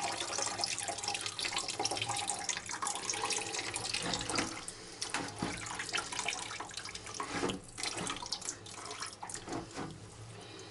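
Engine coolant pouring from a disconnected hose into a bucket: a steady splashing stream that thins and tapers off over the second half, with a few scattered drips and clicks.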